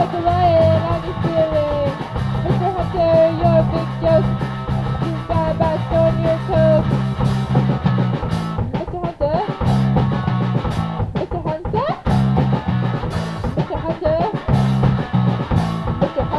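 Rock band playing, with guitar and drums; a wavering lead melody sounds over the first seven seconds, and sharp drum hits stand out in the second half.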